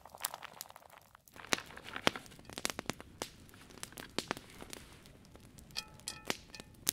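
Frozen blueberries poured from a bag into an aluminium Dutch oven: the bag rustles, and there are many small, irregular clicks as the berries drop in.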